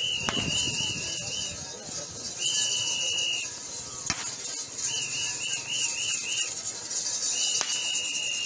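Shrill whistle blown in four blasts of about a second each, two warbling about four times a second and two held steady, over a steady high hiss, with a few sharp knocks.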